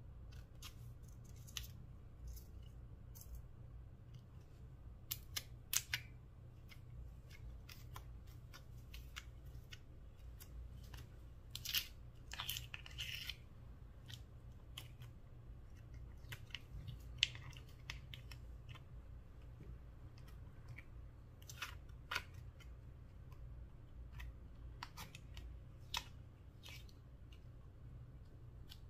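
Scattered small clicks and crackles from hands handling a clear plastic compartment box and pressing clay and fingers into slime strewn with sequins and foam beads, over a low steady hum.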